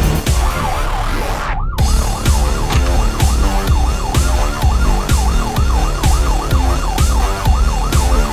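Music ends in an abrupt cut about one and a half seconds in. A siren wail follows, rising and falling about three times a second over a steady drum beat.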